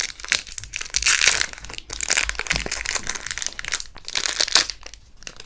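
Packaging crinkling and crackling as a small camera accessory is unwrapped by hand, a busy run of crackles with brief pauses.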